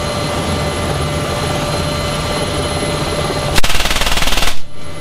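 NH90 helicopter's steady turbine whine and rotor noise, heard from inside the cabin at the open door. About three and a half seconds in, a door-mounted M3M 12.7 mm (.50 calibre) heavy machine gun fires one rapid burst lasting about a second, then stops abruptly.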